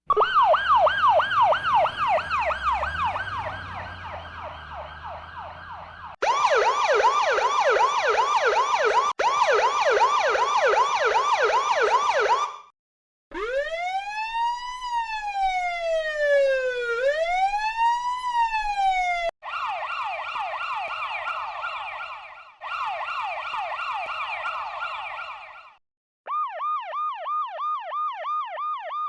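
A run of US and Russian emergency-vehicle sirens played one after another, six in turn, each cut off abruptly with a short break before the next. Most are rapid yelp sweeps at about four a second. The third, in the middle, is a slow wail that rises and falls twice.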